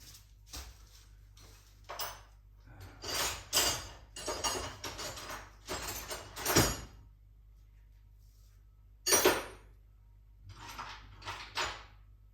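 Metal hand tools, sockets and wrenches, clinking and scraping against each other and against metal parts in a string of short clatters, the sharpest about halfway and about three quarters of the way through.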